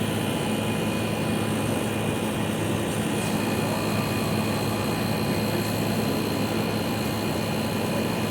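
Window air conditioner running steadily, its compressor and fan motor humming with a constant rush of air. The compressor sounds sound, but the unit blows only ambient air, which the owner puts down to the Freon having leaked out.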